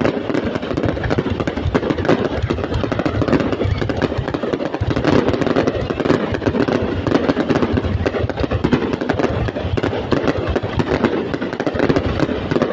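Fireworks display going off: a dense, continuous run of crackles and bangs with no pause.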